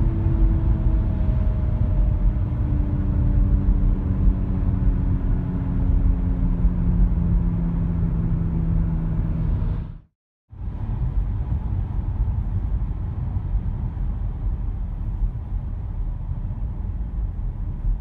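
Road and tyre rumble from a moving Audi A5 B8. In the first part a humming drone slowly falls in pitch, as with a car slowing down. It breaks off briefly about ten seconds in, and the rumble then goes on without the hum.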